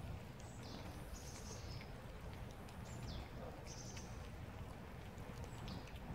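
Cats eating wet food, with small wet clicks of chewing and licking, while small birds chirp briefly several times in the background over a low outdoor rumble.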